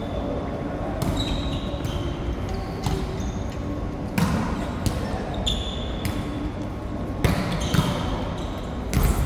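Ball game in a large indoor hall: a ball is struck and bounces with a sharp knock about every second or two, with short high squeaks and players' voices in between.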